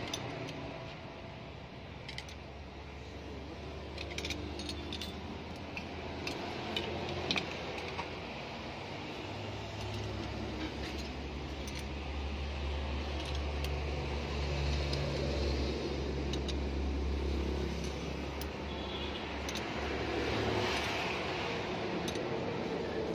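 Small metallic clicks and clinks of a ring spanner and hands working the rocker-arm adjuster nuts on a diesel truck engine's cylinder head, scattered irregularly, over a low steady hum that swells for a while in the middle.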